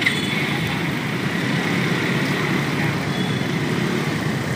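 Steady street traffic noise, an even low rumble of passing vehicles.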